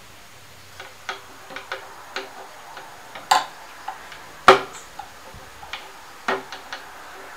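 Irregular light clicks and taps from the parts of a switched-off Black & Decker G650 angle grinder being handled at the disc guard and spindle, with two sharper knocks about three and four and a half seconds in.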